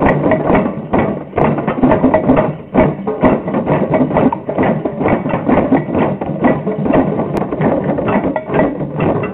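A group playing djembes and other hand drums together: many quick, overlapping hand strikes with no single steady beat.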